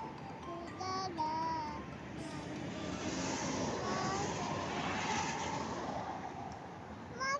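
A small child's voice in short, sing-song phrases for about the first two seconds, over a steady hiss of background noise. Only the background noise continues afterwards.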